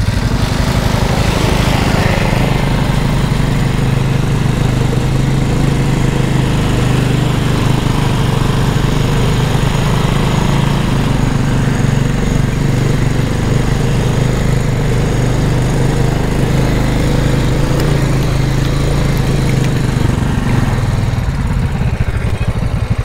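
Small engine of an off-road go-kart running steadily as it drives along a dirt trail, with a steady hiss over it. The engine note eases off near the end.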